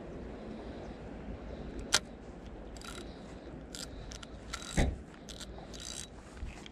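Spinning reel on a fishing rod being handled: a sharp click about two seconds in, then several short scraping, whirring noises from the reel, the loudest with a knock near the five-second mark.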